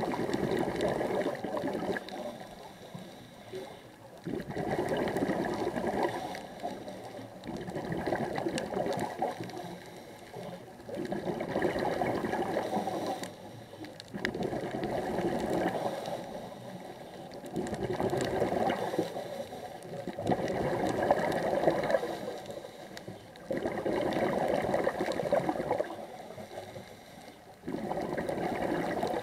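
Scuba diver's exhaled bubbles from a regulator, heard underwater: regular bubbly bursts of about two seconds, roughly every three to four seconds, with quieter breaths-in between.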